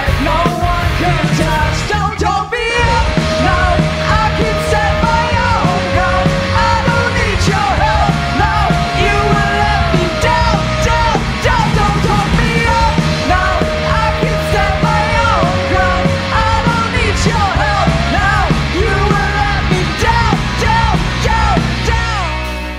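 Live rock band playing: electric guitars, bass guitar and drum kit under a lead singer holding long, sliding notes, with shouted backing vocals.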